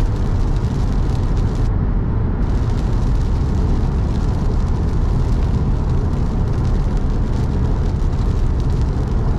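Car driving on a wet road in the rain: a steady low rumble of road and engine noise with a hiss of tyres and rain above it.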